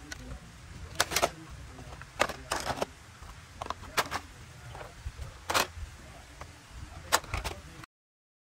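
Hard plastic toy vehicles knocking and clattering as they are picked up and dropped into a plastic basket: a string of sharp, separate clicks and knocks over a low rumble. The sound cuts off suddenly near the end.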